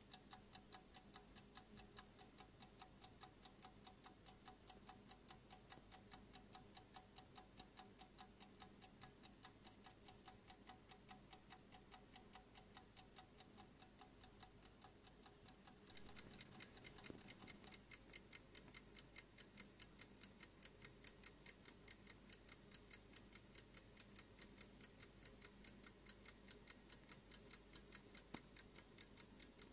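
Antique Japy Frères midget alarm clock with a Roskopf pin-lever escapement ticking: a faint, fast, even tick of several beats a second. The ticks grow a little louder and sharper about halfway through.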